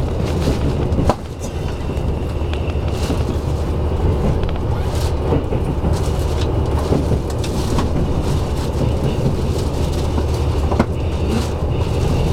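KiHa 85 series diesel railcar running, heard inside the passenger cabin: a steady low drone of engine and wheels on rail, with occasional sharp clicks as the wheels pass rail joints or points.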